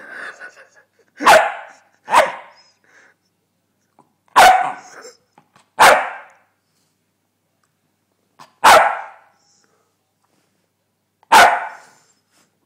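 West Highland White Terrier barking: six single, sharp barks spaced one to three seconds apart.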